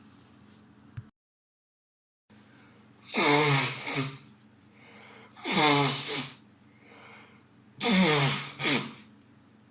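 A man sneezing three times in a row, about two and a half seconds apart, each sneeze loud with a voiced cry falling in pitch. A second of dead silence from an edit comes just before them.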